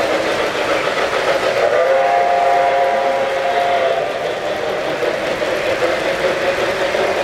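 Model steam locomotive's sound system blowing a whistle: one chord of several tones, starting about two seconds in and lasting about two seconds, over the steady running noise of toy trains rolling on three-rail track.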